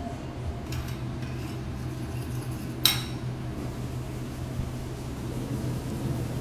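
A single sharp clink of tableware about three seconds in, with a brief ring, plus a couple of faint light clicks before it. A steady low hum runs underneath.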